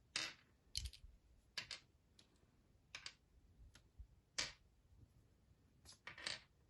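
Faint, scattered clicks and short rustles of small plastic Lego helmets and packaging being handled, about one every second.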